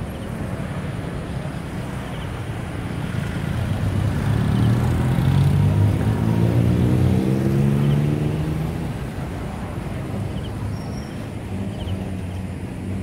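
Steady low hum of road traffic. A motor vehicle passes close by: its engine grows louder to a peak about six seconds in, its pitch slides down as it goes by, and it fades back into the traffic hum.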